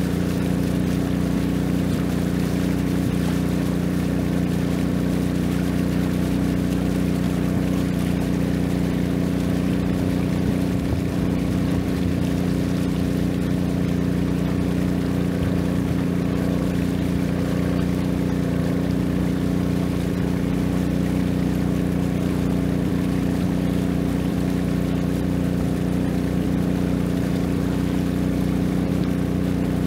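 Long-tail boat engine running at a steady, unchanging speed: a constant drone.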